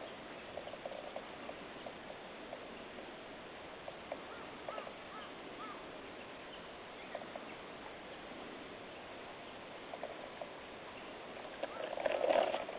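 Domestic cat meowing: a few short, faint calls a little under five seconds in, and one louder meow near the end, over a steady outdoor hiss with scattered faint clicks.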